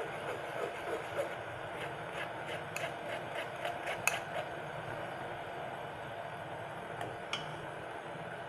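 A steel spoon scraping and tapping inside a fine-mesh steel tea strainer as melted butter is pressed through to strain it for ghee. It makes a quick run of small ticks, about three or four a second, ending in one sharper clink, then two light clicks later on. A steady low hiss sits underneath throughout.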